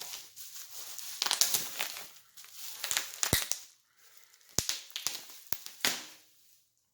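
Packing material crinkling and rustling as it is handled and pulled away, with a few sharp clicks.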